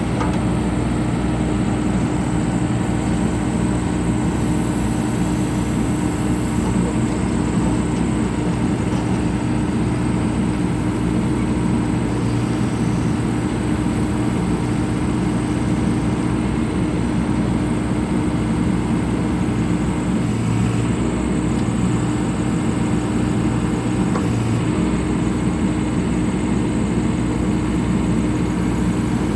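2015 John Deere 310K backhoe loader's diesel engine running steadily at constant speed, with a steady hum over the engine noise.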